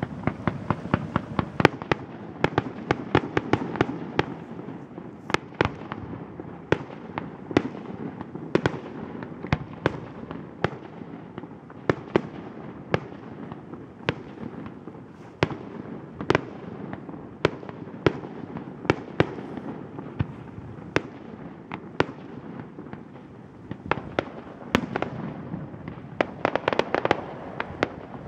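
Fireworks display: shells bursting in an irregular string of sharp bangs over a continuous rumble. Dense volleys come in the first few seconds and again near the end, with single bangs spaced out in between.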